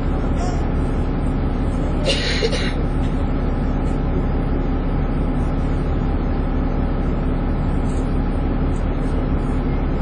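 Dennis Trident 2 double-decker bus running under way, a steady engine drone with a whine, the sound bus enthusiasts call 'hoovering'. A short hiss about two seconds in.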